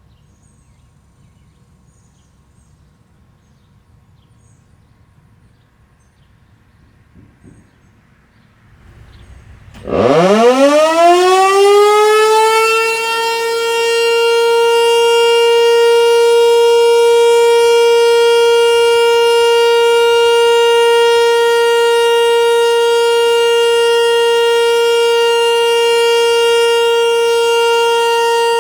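Faint background for about ten seconds, then an early-production American Signal Corporation T-121 tornado siren with aluminum horns winds up. Its pitch rises quickly and levels off into a loud, steady tone, the Alert signal of a scheduled siren test.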